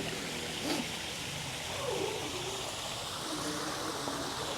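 Steady rush of falling water from a koi pond's waterfall.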